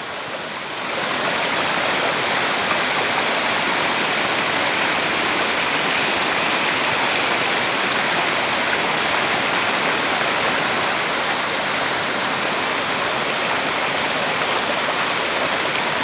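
A small freshwater waterfall rushing and splashing over rocks in a stream, a steady noise of falling water that grows louder about a second in and then holds.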